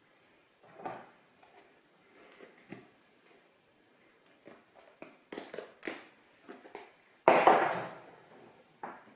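Handling noise from soft plastic wave-former hair curlers and their hook tool: scattered small clicks and rustles, with one louder rustle a little after seven seconds in.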